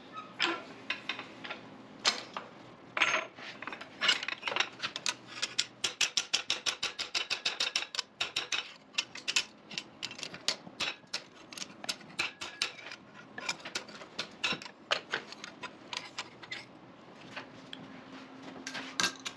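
Hand hammer striking a carbon-steel skillet handle clamped in a vise, a long run of sharp metal-on-metal blows bending a curve into the handle. The blows come fastest, about four a second, in the middle, and thin out near the end.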